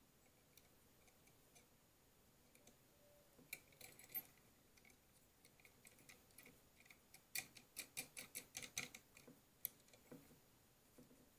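Small metal clicks and ticks of a nut and washers being turned by hand onto a bolt through a steel corner bracket, a few about three and a half seconds in, then a quick run of about ten clicks from about seven to ten seconds in.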